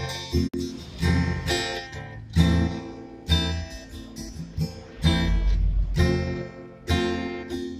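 Acoustic guitar music: chords strummed about once a second and left to ring.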